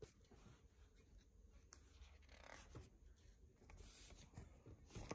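Faint rustling and rubbing of comic-book pages being handled and turned, with a few soft ticks.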